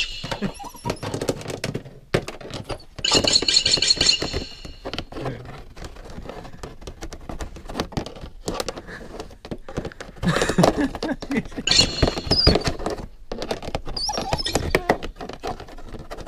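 A dog chewing and pawing at a keyboard: a steady clatter of knocks and clicks from the keys, with short high-pitched sounds now and then.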